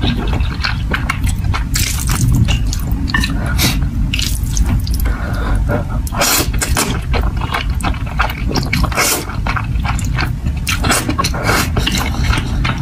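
Close-miked slurping and chewing of saucy noodles: wet sucking and smacking with many quick clicks, over a steady low rumble.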